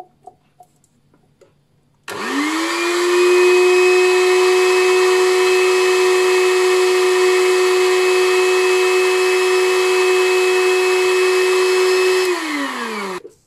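An electric meat grinder more than 30 years old switches on about two seconds in. Its motor whines up to speed and runs noisily and steadily for about ten seconds, pushing minced fish through the sausage-stuffing tube into the casing. Near the end it winds down, falling in pitch, and stops.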